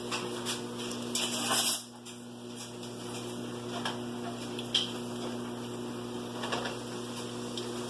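Mustard seeds and black pepper heating in a pan of oil, giving off scattered small ticks and crackles as the seeds begin to pop, with a short sizzling burst about a second in, over a steady low hum.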